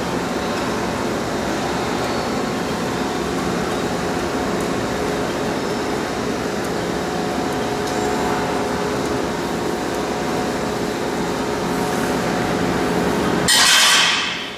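A steady mechanical drone with several held hum tones, then a loud rush of noise about a second long near the end.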